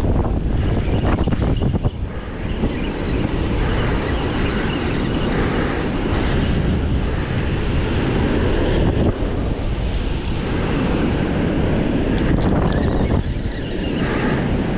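Wind buffeting the microphone over the steady wash of waves breaking in the surf.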